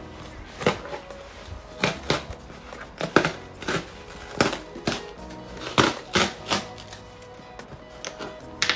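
Irregular crinkles, rustles and taps of packaging being handled and opened during an unboxing, over quiet background music.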